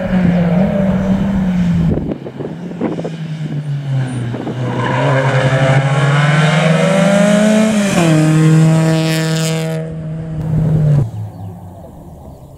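Volkswagen Golf Mk2 rally car's engine at full stage pace. Around two seconds in the revs drop, with a few sharp cracks. The revs then climb steadily under acceleration, drop at a gear change near eight seconds and hold, before the sound fades quickly as the car goes by and away near eleven seconds.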